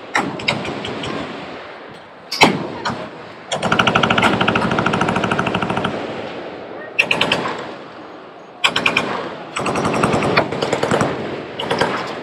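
Machine guns firing in bursts. A single loud shot about two seconds in, then a long burst of rapid fire lasting about two and a half seconds, then a string of shorter bursts, with a rumbling echo between them.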